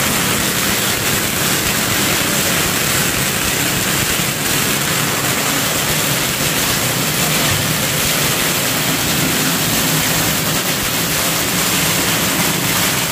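Ground fountain firework (anar) spraying sparks with a loud, steady hissing rush and a fine, dense crackle.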